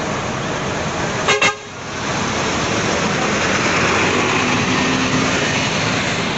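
A bus horn gives one short toot about a second in, over the steady noise of bus engines running; the engine noise grows louder towards the middle.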